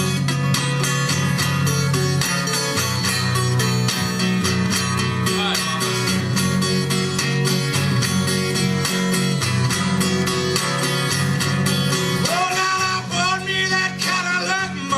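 Solo acoustic guitar playing a fast fingerpicked country-blues solo: a dense run of quickly plucked notes over a steady picked bass line.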